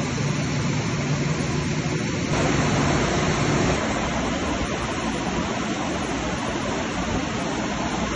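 Diesel engine-driven generator sets of an SCR drilling rig running steadily, a constant loud mechanical drone. A low hum in it drops away about four seconds in, leaving an even noise.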